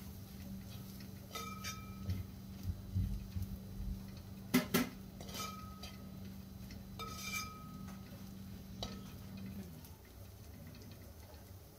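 A spoon stirring a thick onion-and-spice masala in a wide metal uruli, scraping and knocking against the pot. It makes several sharp clinks with a short metallic ring, the loudest about four and a half seconds in, among softer thuds of the stirred mixture.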